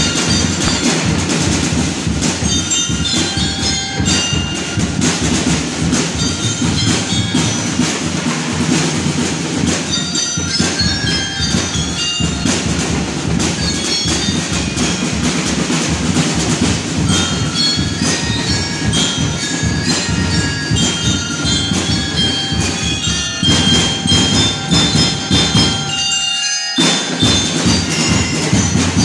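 A drum and lyre corps playing: marching drums keep a steady, dense beat while bell lyres ring out short high notes. The music breaks off for a moment near the end, then picks up again.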